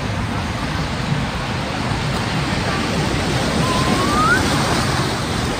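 Sea surf washing onto the beach in a steady rush that swells to its loudest about four seconds in, with a short faint rising tone just before the peak.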